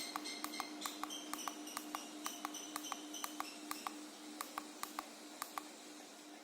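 Small electric fan on a dimmer-controlled speed setting, running with a steady hum and a rhythmic ticking that gradually slows: the fan winding down after being switched to slow. Short high whining tones step in pitch during the first half.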